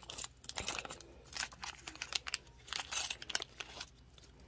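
Small plastic bead bag crinkling in short, irregular crackles as it is opened and the metal chandelier findings inside are taken out.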